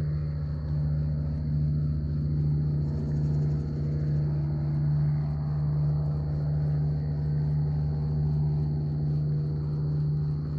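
Airboat engine and propeller running at a steady pitch, a low continuous hum.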